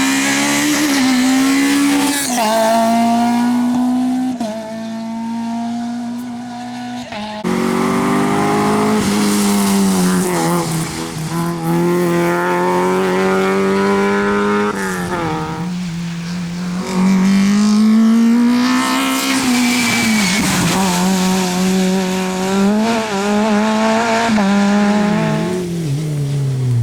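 Rally car engines driven hard, the pitch climbing under acceleration and dropping back at each gear change and lift. The sound cuts suddenly from one car to another about a third of the way in.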